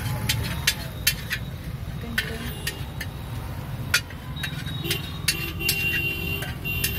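Metal ladle and spatula clinking and scraping against a large iron tawa as gravy is stirred on it: a string of sharp, irregular clinks over a steady low rumble.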